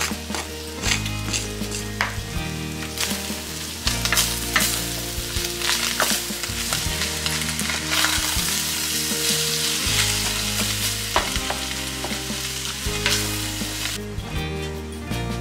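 Ground beef and chopped onion sizzling in a stainless steel pot, stirred and scraped with a wooden spoon, under background music. The sizzling stops near the end, leaving the music.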